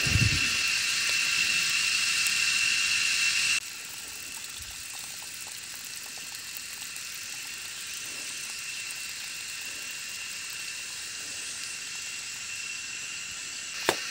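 Steady high hiss with a thin whine in it, dropping abruptly to a quieter hiss about three and a half seconds in, with water running in a muddy paddy-field channel. A couple of sharp clicks come near the end.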